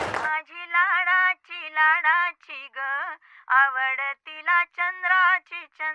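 A woman's solo singing voice in short sung phrases with brief gaps between them, with no audible accompaniment. A burst of crowd noise cuts off abruptly just at the start.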